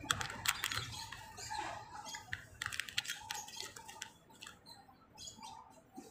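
A small plastic packet crinkling and crackling in the hands, a quick run of crackles that is loudest in the first three seconds and thins out after.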